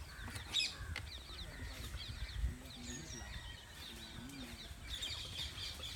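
Birds chirping: many short, high calls in quick series over a low rumble.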